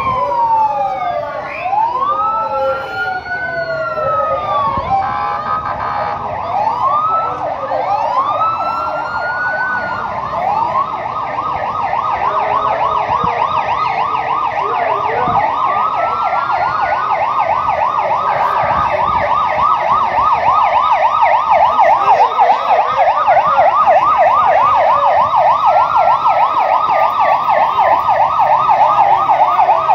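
Several emergency vehicle sirens sounding at once: slow rising-and-falling wails overlap at first, then a fast yelp takes over about six seconds in and grows louder in the second half.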